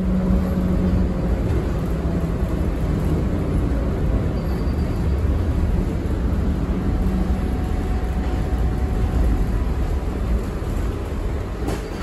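Tram running: a steady low rumble with a faint humming tone, and one sharp click near the end.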